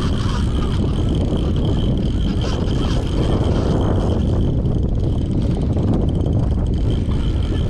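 Wind buffeting the microphone and water rushing along the hull of a moving fishing kayak on open ocean chop, with a steady high whine underneath.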